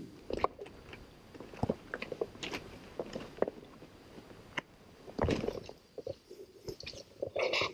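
Irregular crunching and scraping footsteps on rocky, gravelly ground, with a louder scuff about five seconds in.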